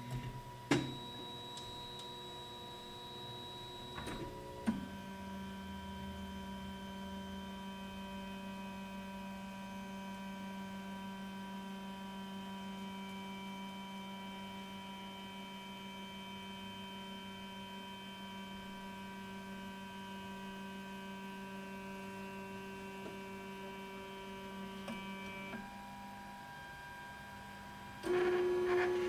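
Flashforge Dreamer 3D printer homing for bed leveling. Its stepper motors click a few times, then whine steadily for about twenty seconds while the build platform is driven up its lead screw toward the nozzles. The whine stops, and a different, louder tone starts near the end.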